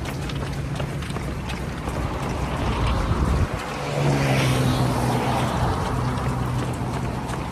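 Wind rumbling on a phone microphone carried by a running person. Under it are a steady low hum, the faint patter of many runners' footsteps on the road, and a louder swell about four seconds in.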